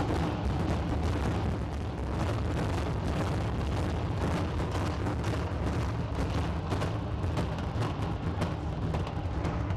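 Stadium implosion: demolition charges firing in a rapid, continuous crackle of detonations over a deep rumble as the concrete structure collapses.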